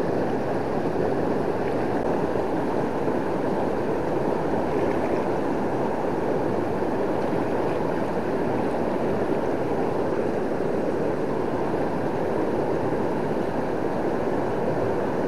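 Steady rush of a swollen river running high in flood after heavy rain.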